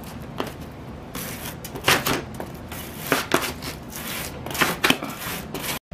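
Hand sanding: the end of a plastic pipe ring rubbed back and forth over a flat sheet of sandpaper, scraping freshly cured hot glue off it. It comes as several uneven scratchy strokes with short pauses between them.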